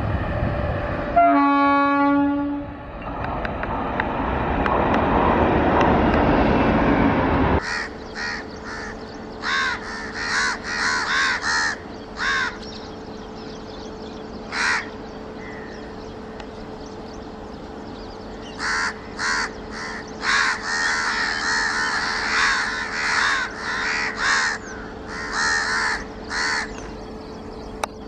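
A train horn sounds briefly over the running noise of passing electric trains. After an abrupt cut, crows caw again and again in short bursts over a steady hum while an express approaches in the distance.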